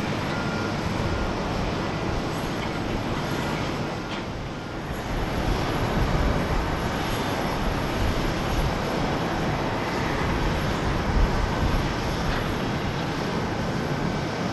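Boeing 737-800's CFM56-7B jet engines running at taxi power: a steady broad rush with a thin high whine, dipping slightly about four seconds in and then swelling again.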